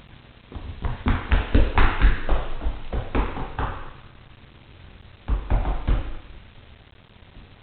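A toddler's sneakered feet stamping and patting on a hard wooden floor: a quick run of thumps for about three seconds, then a shorter burst about five seconds in.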